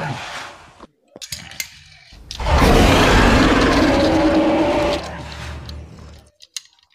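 Plastic toy dinosaur figures clicking and knocking as they are handled. About two seconds in comes a long rough roar for them, lasting some two and a half seconds and then fading, followed by more clicks.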